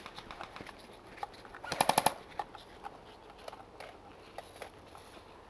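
Airsoft rifle firing a rapid burst of about five shots about two seconds in, with scattered single sharp snaps before and after.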